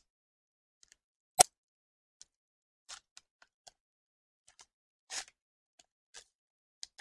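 Foil wrapper of a Pokémon trading card booster pack crinkling in short, separate bursts as it is handled and torn open, with one sharp click about a second and a half in.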